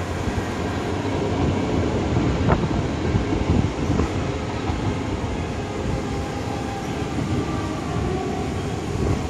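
Passenger train running at speed, heard from inside the carriage: a steady low rumble of wheels on the rails, with a couple of short clicks.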